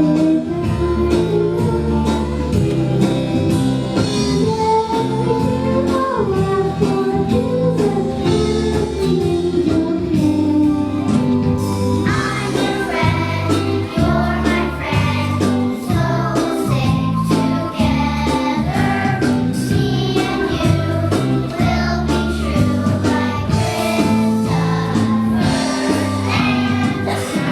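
A song: singing with instrumental accompaniment, filling out with more upper sound about twelve seconds in.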